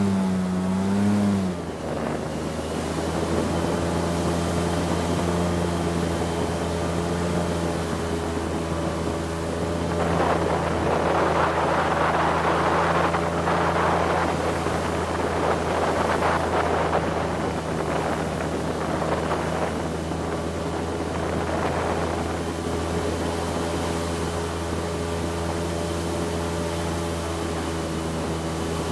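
Airboat's engine and propeller running steadily. Its note drops about a second and a half in, and from about ten seconds to twenty-two seconds a rushing noise of wind and spray rises over it.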